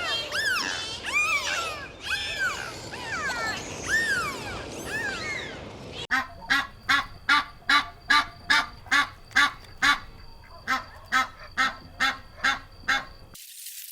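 Several birds calling over one another, each call rising and falling in pitch. About six seconds in, this changes abruptly to a duck quacking in a steady, even run of about two and a half quacks a second, which stops near the end.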